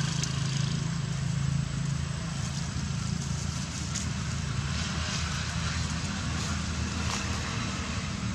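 A motor runs steadily with a low hum, under a constant hiss, with a few faint clicks.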